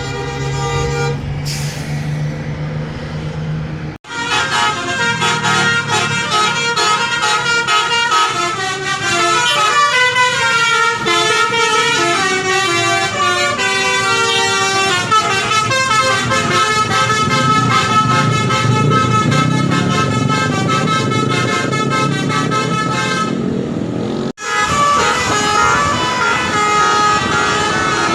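Bus telolet/basuri musical horns playing a melody of stepped notes, several tones sounding together, over a bus engine running. The sound cuts off abruptly twice, about 4 seconds in and again near the end, where the horn tune resumes.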